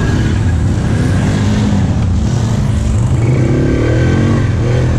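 ATV engine running under throttle as the quad pulls across the mud, its pitch rising about three seconds in as it revs up.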